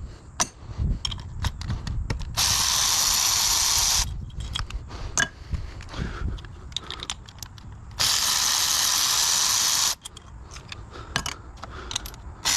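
Power tool backing out a bolt in two steady runs of about a second and a half each, with clicks and knocks of metal tools being handled between the runs.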